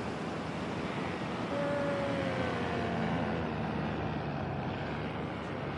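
Paramotor engine droning past on a flyby, coming in about a second and a half in with its pitch falling slightly as it passes, over a steady rushing noise.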